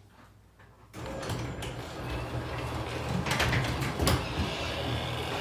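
Electric garage door opener starting about a second in and running steadily, the door moving along its track with a low hum and occasional rattles and clicks.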